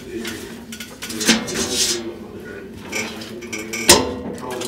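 Hard objects clinking and knocking over a steady low hum, with a sharp strike about a second in and a louder one near the end.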